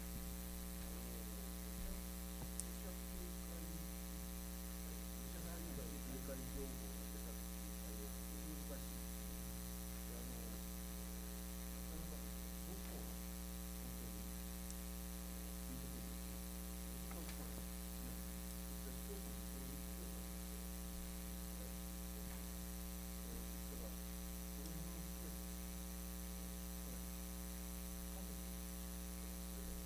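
Steady electrical mains hum with a dense stack of overtones, running unchanged throughout. It comes from faulty recording equipment.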